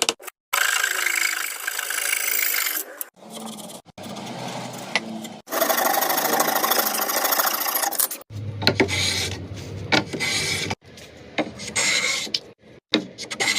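A series of short, abruptly cut clips of woodworking tools rasping and rubbing against wood. The later clips have a few sharp knocks and a low machine hum.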